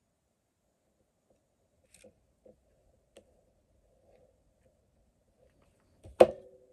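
Hot glue gun being handled: a few faint clicks, then one sharp clack near the end, followed by a brief ringing tone.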